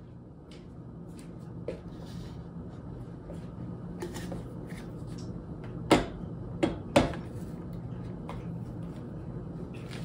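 An electric coffee grinder being set down on a granite countertop and handled: three sharp knocks in quick succession just past the middle, among lighter taps. A steady low hum runs underneath.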